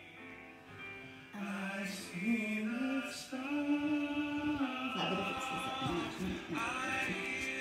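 Music with a singing voice: long held notes stepping from pitch to pitch, becoming much louder about a second and a half in.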